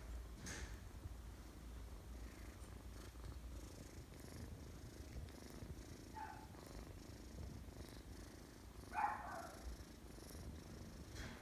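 Domestic cat purring steadily and faintly, close up, with a short high call about six seconds in and a louder, brief cat-like call about nine seconds in.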